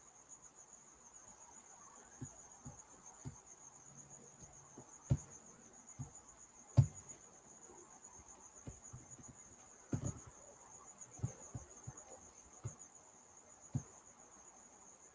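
Scattered sharp clicks and taps at irregular intervals, fitting computer mouse or keyboard clicks while zooming in on a screen. A faint, steady high-pitched tone runs underneath.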